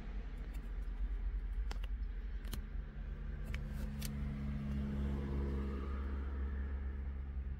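Steady low rumble inside a parked car's cabin, with a steady low hum joining about three seconds in and a few faint clicks.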